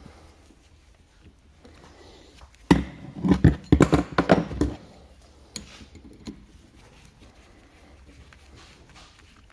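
Knocking and clatter of tools and parts during work on a diesel high-pressure fuel pump, in one burst of about two seconds starting roughly three seconds in.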